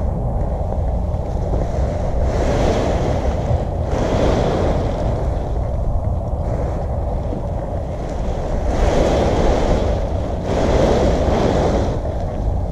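Wind buffeting the microphone: a steady low rumble with gusts of rushing noise that swell and fade every second or two.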